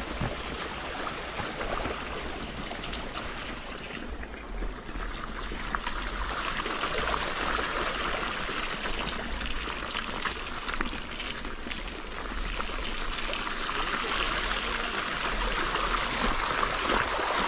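Shallow river water running and splashing steadily, with a brief lull about four seconds in.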